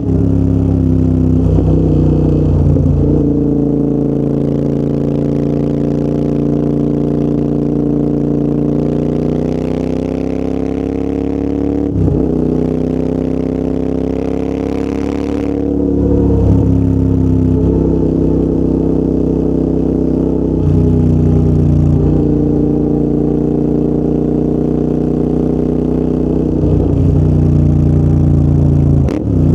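Royal Enfield Interceptor 650's parallel-twin engine running through a full TEC exhaust system while riding. The exhaust note holds steady between several brief breaks and pitch changes where the rider shifts gear.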